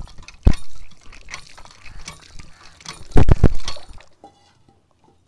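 Metal hand pump being worked by its handle: clanks and clinks on the strokes, with water splashing from the spout. The sound stops about four seconds in.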